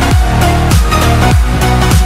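Electronic dance music: a heavy kick drum about three times a second, each hit a falling bass tone, under a steady synth line.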